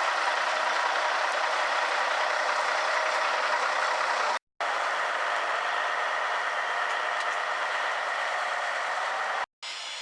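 Diesel engine of a Kenworth C500 logging truck running steadily, heard in three stretches separated by two brief silent edit cuts, the second cut just before the end.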